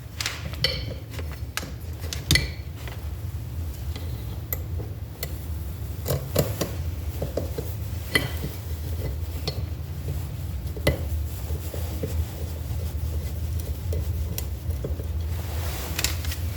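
Scattered small metallic clicks and clinks of a screwdriver and steel screws against a Toyota 4A-FE distributor as its pickup coil parts are screwed in, over a steady low hum.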